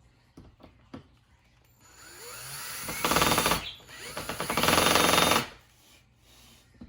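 Cordless power drill driving a screw into the cage's roof frame. The motor spins up with a rising whine about two seconds in, then runs in two loud bursts with a short pause between them, the second the longer, before it stops.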